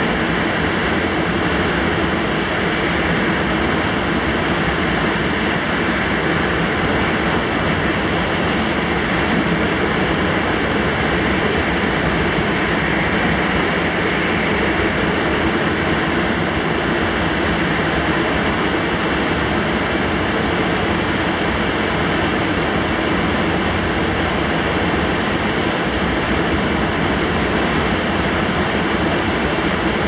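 Typhoon Mangkhut's storm-force wind rushing steadily between high-rise tower blocks, funnelled by the gap between the buildings, with heavy driving rain. A loud, unbroken roar that does not let up.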